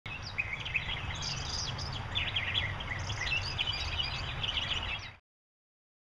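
Small birds chirping and twittering in quick, overlapping calls over a steady low background rumble; the sound cuts off abruptly about five seconds in.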